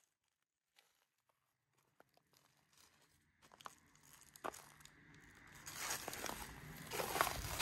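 Crunching, rustling footsteps over dry ground. They start faint and scattered and grow louder and more continuous toward the end.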